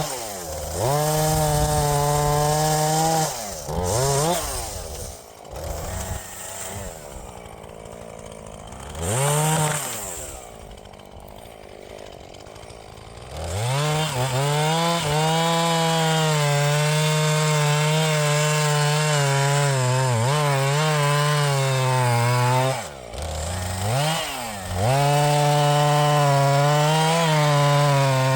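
Two-stroke chainsaw revved to full throttle for long stretches, dropping back to idle several times in between: the first part is broken by repeated short drops and a quieter idling stretch, then the saw runs high and steady through most of the second half.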